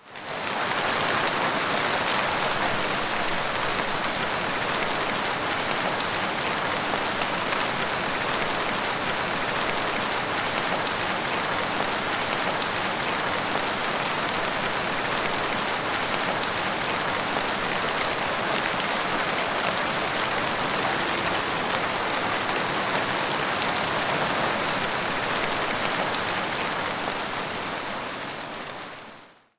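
Heavy rain falling steadily, a dense even hiss of drops, fading in at the start and fading out near the end.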